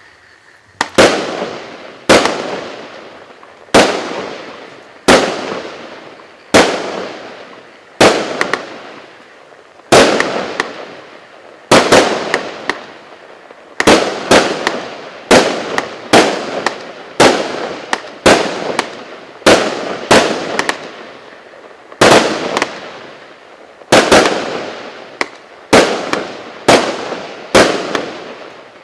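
A 36-shot, 0.8-inch consumer fireworks cake firing shot after shot. There is a sharp bang about every one and a half seconds, now and then two in quick succession, and each dies away in a fading tail.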